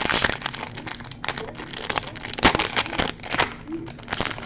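Crinkling and rustling of trading-card pack wrappers and cards being handled, with a run of sharp clicks and snaps, the loudest about two and a half seconds in.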